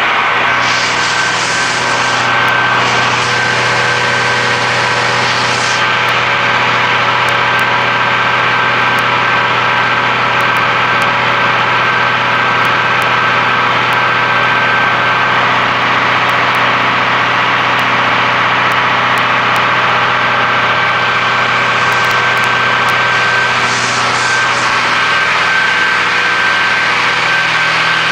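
Loud, steady drone of broadcast transmitter equipment, its cooling blowers and power supplies running with a constant hum and several steady whining tones. A brief rush of hiss comes twice near the start and once near the end.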